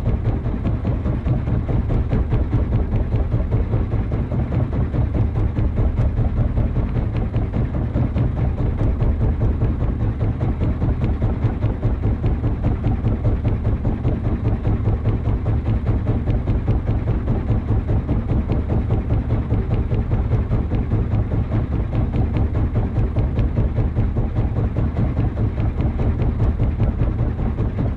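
Boat engine idling with a fast, even low thumping.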